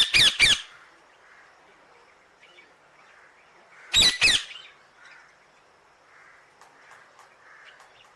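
A parrot giving loud, harsh screeching calls: a quick run of three at the very start and two more about four seconds in, with faint short chirps in between.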